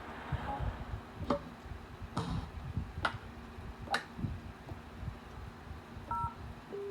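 Sampled sound effects from a Yamaha PSS-51 keyboard's effect pads: four sharp knocks or clicks about a second apart, then a short electronic two-note beep near the end.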